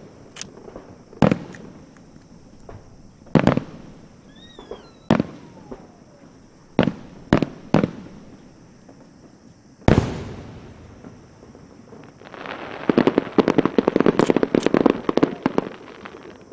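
Aerial fireworks shells bursting high overhead: separate booms every second or two, the loudest about ten seconds in with a long echoing tail. Near the end comes a dense run of rapid crackling reports lasting about three seconds.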